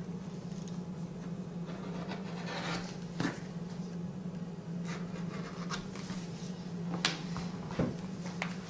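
Rotary cutter rolling through suede leather on a rubber board, with soft rasps and rustles as the leather is cut and handled, and a few sharper clicks about three and seven seconds in, over a steady low hum.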